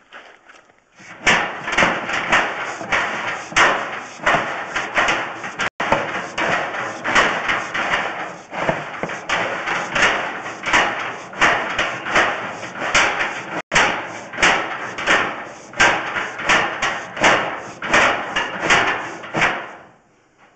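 Sewer inspection camera's push cable being fed down the drain line: a steady run of knocks and clatters, about two a second, starting about a second in and stopping just before the end.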